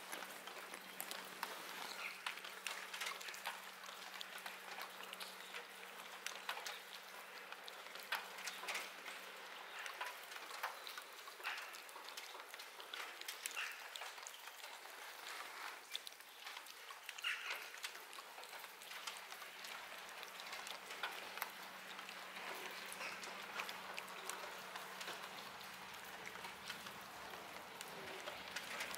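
Cat eating wet food chunks from a plastic tub: faint, irregular smacking and clicking of chewing and licking, with a faint steady low hum beneath.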